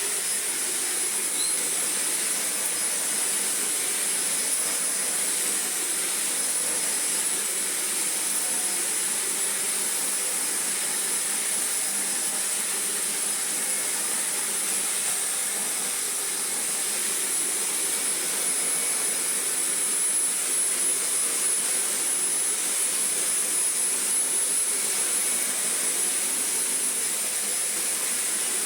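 Shark Navigator Lift-Away upright vacuum cleaner running steadily with a constant high-pitched motor whine, pushed back and forth over a deep-pile rug. It runs normally on test after a new mains cable has been fitted.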